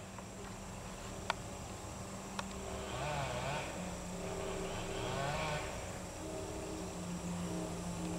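Heavy construction equipment at a pipeline worksite running with a steady diesel drone that shifts in pitch now and then, with two sharp metal clanks in the first few seconds and a thin, steady insect trill above it.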